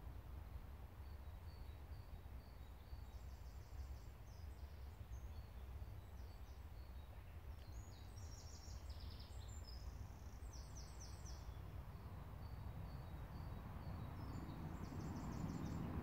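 Small songbirds singing in woodland: four short, high trilled phrases, with scattered high chirps between them, over a steady low rumble.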